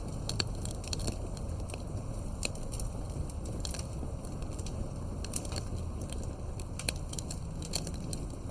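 Campfire crackling: irregular sharp pops and snaps, several a second, over a steady low rush of burning wood.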